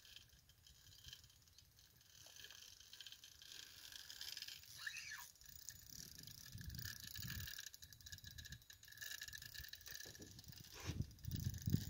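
Spinning reel being cranked, a faint whirring, clicking rattle of its gears as a hooked fish is reeled in against a bent rod.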